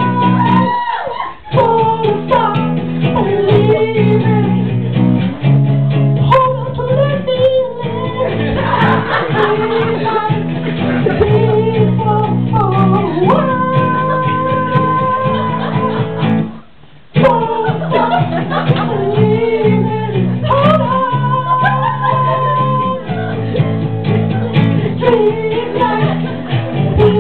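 Acoustic guitar strummed and picked, with a man's singing voice holding long notes over it. The music stops for a moment about two-thirds of the way through, then carries on.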